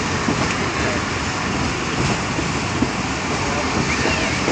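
Steady running noise of a moving passenger train heard through an open carriage window: the even rush of wheels on rails and of the air streaming past.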